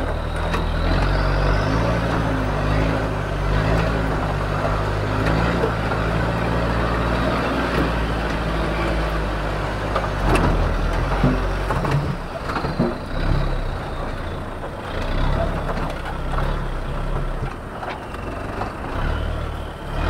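Off-road vehicle engine running steadily. From about the middle it turns uneven as the vehicle pulls away over rough ground, with a few knocks.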